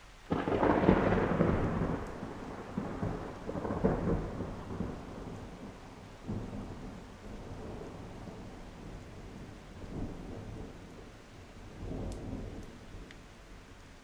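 Thunder: a sudden clap about a third of a second in, then a long rolling rumble that swells again around four seconds and dies away in several smaller rolls.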